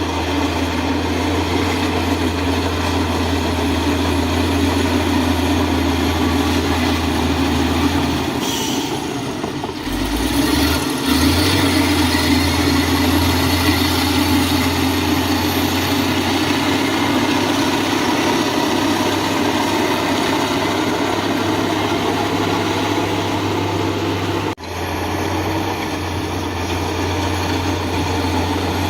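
Heavy diesel engine of earthmoving machinery running steadily with a low, even hum. Its note wavers and shifts briefly about ten seconds in, and the sound drops out for an instant about three-quarters of the way through.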